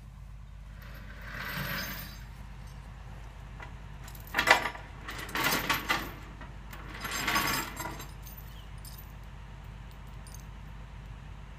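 Metal chains jangling and clanking in four short bursts, the second the loudest, as tie-down chains are handled on the excavator's transport truck, over a low steady engine hum.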